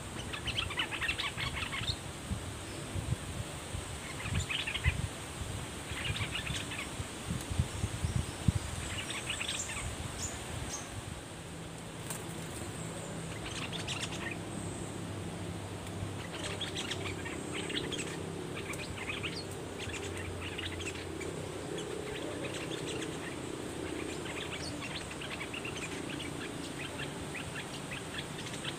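Bulbuls calling in short, quick bursts of chattering notes, over and over, from a caged decoy bird and wild birds drawn to it. A faint steady high insect whine sits underneath, and a low steady hum comes in about halfway.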